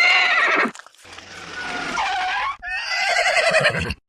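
Dubbed sound effects: a horse whinnying, then a vehicle's engine and skidding tyres, then more wavering, pitched calls.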